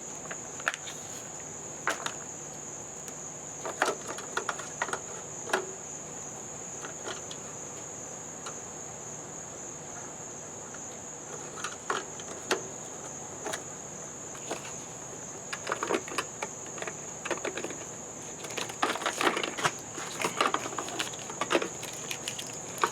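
Steady high-pitched trill of crickets, with scattered clicks, knocks and rustles of handling that grow busier near the end.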